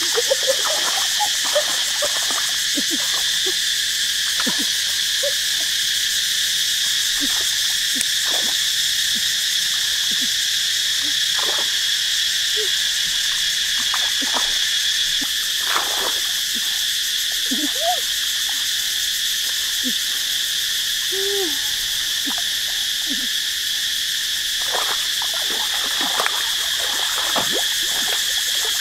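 Steady insect chorus, strongest in a high band, with frogs giving short calls scattered throughout.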